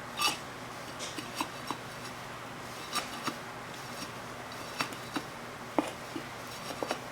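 Flower stems being trimmed and handled: about a dozen short, sharp clicks and snips at irregular intervals, some with a brief ring.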